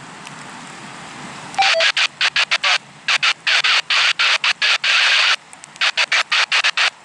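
Low rumble of a freight train moving away. From about a second and a half in it is drowned by loud, irregular bursts of scratchy rustling noise close to the microphone, starting and stopping abruptly several times.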